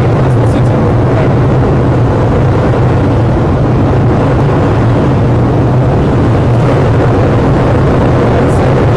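An F/A-18 Hornet's twin jet engines running steadily and loudly at combat (afterburner) power while it is held on the catapult before launch, heard from inside the catapult control station.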